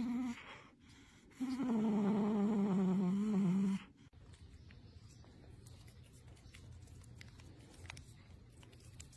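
A dog vocalizing: a short call at the start, then one long wavering whine of about two seconds.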